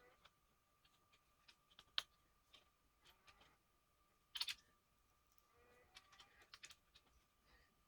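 Sparse light clicks and taps of laptop parts being handled during a hard-drive-to-SSD swap: a sharp click about two seconds in, a double click a couple of seconds later, and a run of small ticks near the end, over a faint steady whine.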